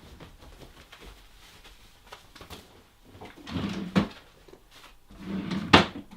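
Two short bursts of rustling handling noise, each ending in a sharp knock, about three and a half and five and a half seconds in.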